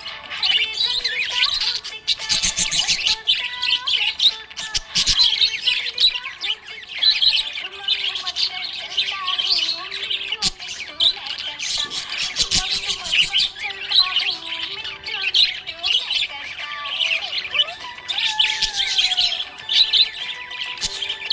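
Budgerigars chirping and chattering: a dense, unbroken run of quick high chirps and warbles, many calls overlapping.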